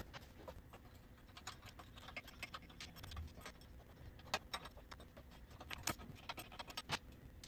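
Faint, irregular metallic clicks and clinks of a wrench working on the manifold nuts, with a few sharper clicks in the second half.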